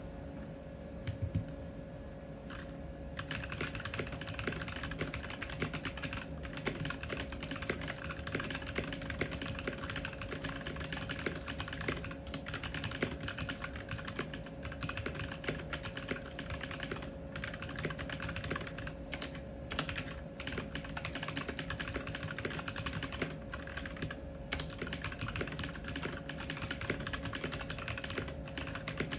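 Mechanical keyboard with tactile brown switches being typed on, key clicks that are sparse for the first few seconds and then become a fast, continuous run of typing.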